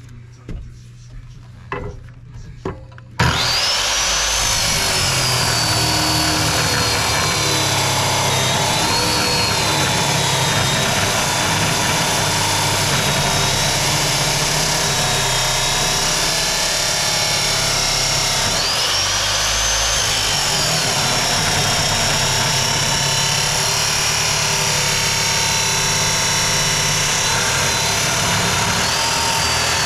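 A few light knocks, then about three seconds in an abrasive chop saw starts and cuts into steel, spraying sparks. Its loud, steady grinding holds to the end. The motor's whine climbs and then sags as the wheel bites into the metal, once near the start and again in the middle.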